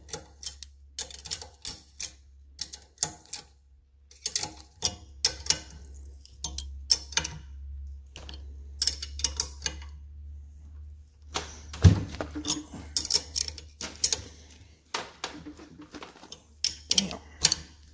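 Irregular metal clicks and clinks of a combination wrench being fitted and worked on a nut on a bolt held in a bench vise, with a heavy knock about twelve seconds in, over a steady low hum.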